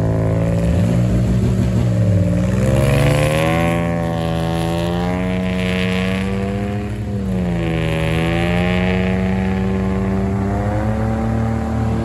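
Off-road vehicle's engine revving hard under load, its pitch climbing about three seconds in, sagging around seven seconds and climbing again, with a hiss in the upper range while it is high.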